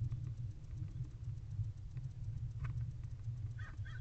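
A barn owl in its nest box picking and tearing at a rat carcass, heard as faint scattered ticks and scratches over a steady low rumble. A few short high chirps come near the end.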